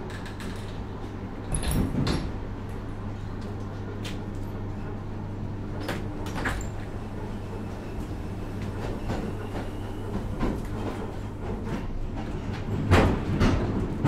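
Moving train heard from inside the vestibule between cars: a steady low rumble and hum, with a few sharp knocks and rattles about two seconds and six seconds in, and a run of louder wheel knocks starting near the end.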